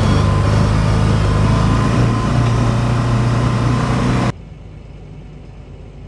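Vehicle engine running steadily, heard from inside the cab. About four seconds in it cuts off abruptly to a much quieter, steady hum.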